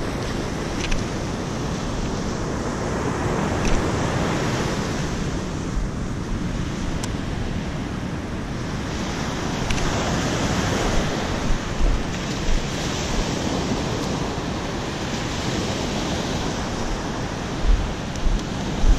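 Ocean surf breaking on a sandy beach, a steady wash of waves that swells and eases, with wind on the microphone.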